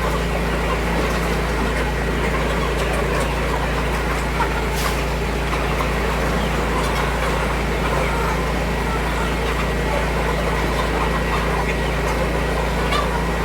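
A steady low mechanical drone, as of an engine running at constant speed, with a hiss over it and one faint click about four and a half seconds in.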